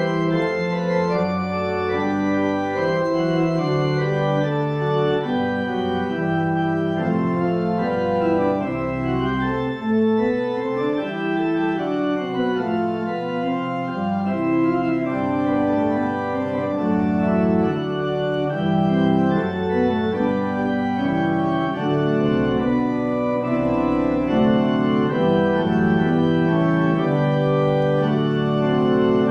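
Organ music: slow held chords moving from one to the next over low bass notes.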